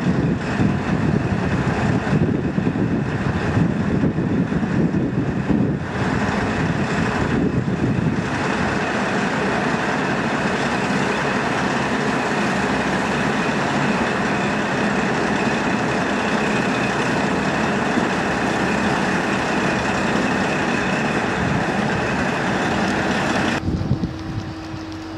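Sanriku Railway 36-200 diesel railcar running steadily as it moves slowly along the tracks. Near the end the sound cuts to quieter wind noise.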